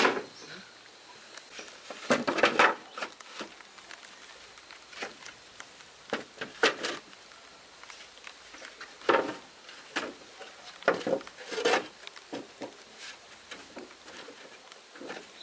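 Irregular light taps, clicks and short scrapes, as of small objects being handled and set down, with the loudest scrapes about two seconds in and again near the middle and towards the end.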